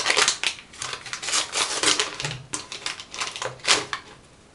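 Paper packaging crinkling and tearing as a small parcel is opened by hand: a dense run of irregular rustles and crackles that stops about four seconds in.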